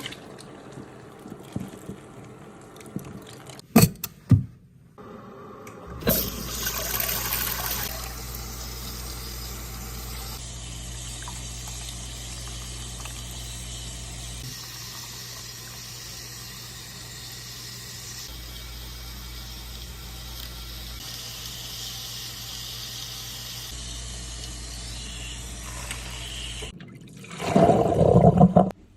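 Water spraying steadily from a handheld shower sprayer, rinsing hair and scalp over a salon wash basin. It starts with a louder splash about six seconds in and stops a couple of seconds before the end, preceded by a few sharp taps and followed by a brief louder handling noise.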